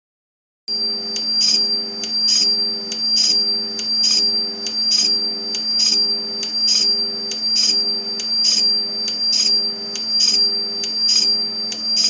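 Magnetron plasma flasher's homemade audio-range oscillator and transformer running, giving a steady high-pitched whine over a low hum, with beeping pulses that alternate between two pitches and repeat a little more than once a second. It cuts in abruptly just under a second in.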